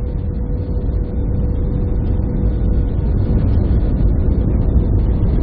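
Steady deep rumble of jet engines and rushing air heard inside an airliner cabin around landing, with a constant hum running through it, growing slightly louder.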